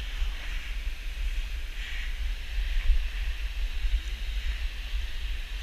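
Wind buffeting the camera's microphone with an uneven low rumble, over a steady hiss of outdoor noise.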